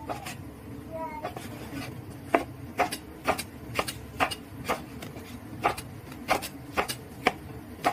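Kitchen knife chopping a long green pepper on a wooden cutting board: the blade knocks on the board in an even rhythm, about two a second, starting a couple of seconds in.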